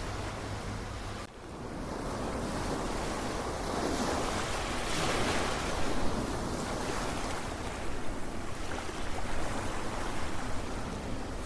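Ocean surf: a wave swells and breaks about five seconds in, followed by an uneven wash. About a second in, the sound drops out briefly and a steady low hum ends.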